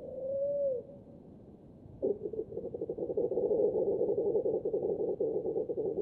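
Water rail's piglet-like squealing, played back slowed down five times so it sounds low: a short falling call at the start, then after a pause of about a second a long run of rapid pulsed squeals.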